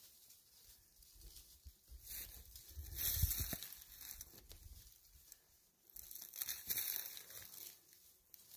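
Dry brush and leaves rustling and crackling in two louder bursts, one about two seconds in and one about six seconds in, with fainter rustling between.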